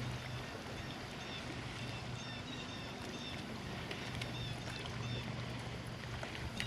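Boat motor running with a steady low hum under a haze of water and wind noise. A few faint, short high chirps come through around the middle.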